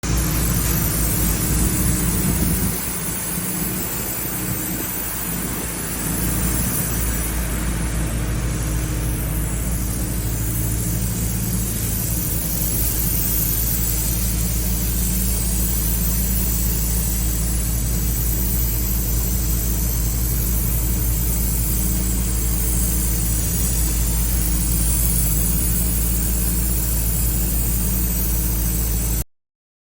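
Engine-driven spray coating equipment running steadily: a constant engine drone with a hiss above it. It dips a little for a few seconds near the start and cuts off suddenly at the end.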